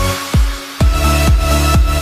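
Electronic dance music with a steady heavy beat about twice a second under held chords.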